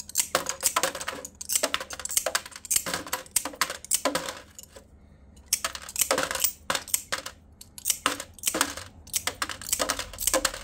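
Hand glass nippers chopping glass into small pieces: repeated sharp snaps, about two or three a second, with small shards clinking inside a plastic jug used as a chip shield. The snapping pauses for about a second midway, then resumes.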